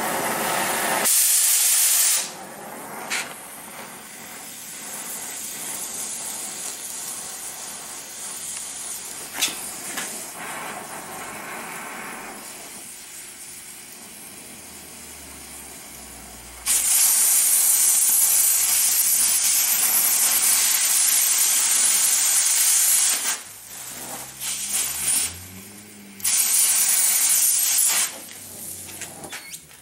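Oxy-fuel cutting torch hissing steadily as it heats and cuts through a worn bearing on a compressor crankshaft. The hiss turns much louder three times: briefly near the start, for about six seconds in the middle, and again near the end as the cut throws sparks.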